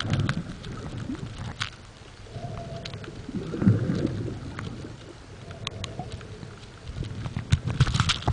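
Underwater sound picked up by a submerged camera: scattered sharp clicks and crackles over muffled low rumbling swells of moving water, the strongest swell about three and a half seconds in.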